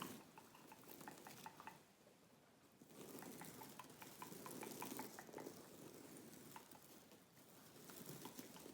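Faint, close-miked ASMR mouth sounds: gum chewing with many small, wet clicks, over a soft rustling hiss.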